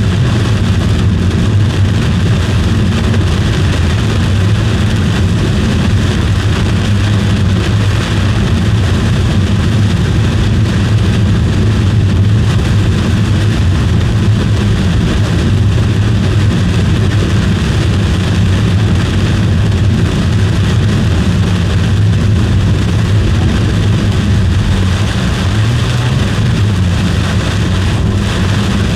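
Steady, loud road and engine noise of a car driving, heard from inside the cabin.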